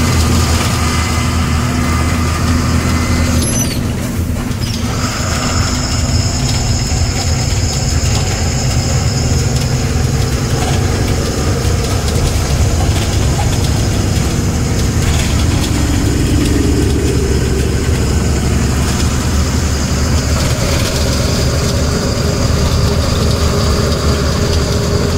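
Diesel tipper truck's engine running, heard from inside the cab as the truck drives along, a steady low drone with road noise.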